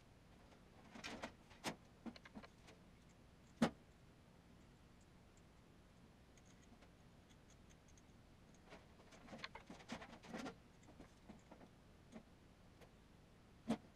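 Scattered light clicks and taps of wires and a soldering iron being handled on a tabletop while soldering a wiring harness. There are two short clusters of small knocks and two sharper single clicks, one about three and a half seconds in and one near the end.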